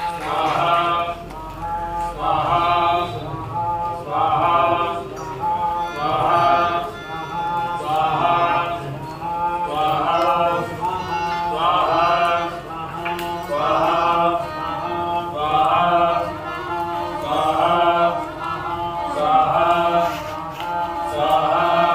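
Group of men chanting mantras in unison, a regular rhythmic phrase returning about every two seconds.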